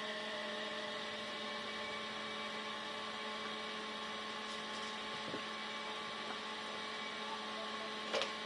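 Steady electrical hum made up of several constant tones, with a few faint ticks.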